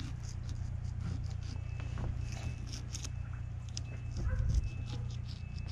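Fillet knife cutting along and under a black drum's scaled skin: a run of small, sharp crackling and scraping clicks over a steady low hum, with one louder dull bump about four seconds in.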